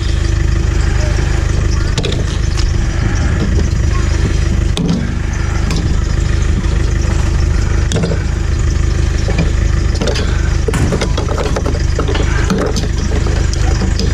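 Steady low hum of an idling engine, with scattered sharp clicks and knocks from copper tubing being cut and handled on a scrapped fridge.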